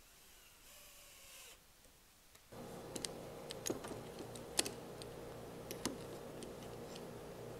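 Scattered sharp metallic clicks and taps as a locking face clamp is handled and tightened onto the corner of a pine door frame. The clicks start about two and a half seconds in, and the loudest comes near the middle.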